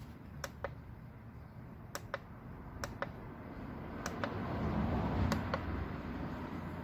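Five pairs of sharp clicks, roughly one pair a second, over a low rumble that swells about four to six seconds in.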